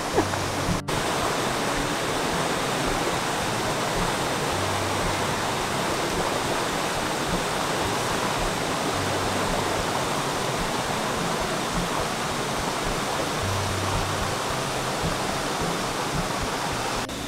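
Steady rushing of a river flowing over rocks.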